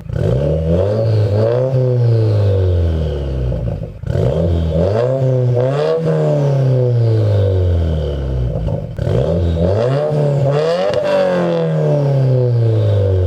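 Subaru WRX's turbocharged flat-four engine, heard through an Invidia R400 cat-back exhaust with its resonator deleted, revving up and falling back three times in a row.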